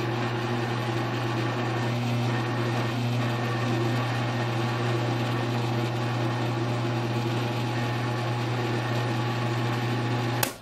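Grizzly G1007 mill-drill running, its motor and spindle turning a boring head in a hole in a 6061 aluminum block: a steady low hum with an even whir above it, which stops abruptly near the end.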